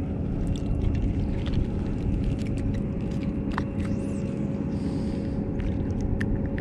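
Boat's electric trolling motor running with a steady hum over a low rumble, with a few light clicks scattered through.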